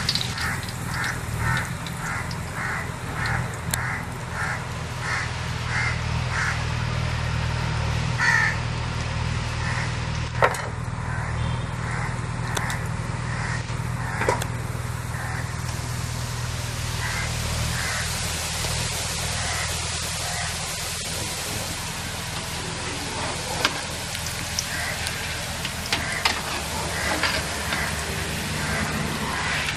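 Boondi batter frying in hot oil in an aluminium kadai, a sizzling hiss that grows stronger in the second half, over a steady low hum. A crow caws over and over, about twice a second, through the first several seconds. The metal spatula knocks against the pan a couple of times.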